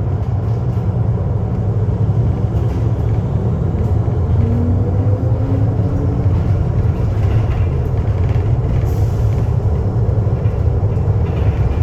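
Steady low rumble of a moving vehicle, with a faint rising whine about four to five seconds in.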